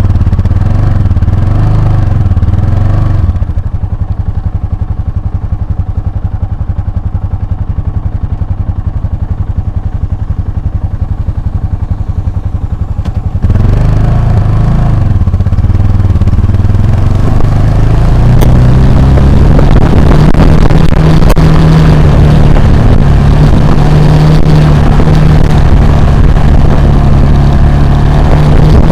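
Motorcycle engine, heard close up from the riding bike: it revs for the first few seconds, drops to a low steady run for about ten seconds, then picks up again about halfway through and holds a steady higher speed, with rushing wind and road noise growing beneath it.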